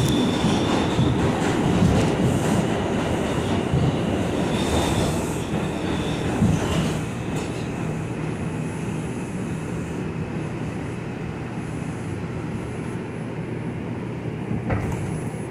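R142 subway train running through a tunnel, with a steady rumble of wheels on rail and two short high wheel squeals in the first half. The sound eases off in the second half as the train slows into a station.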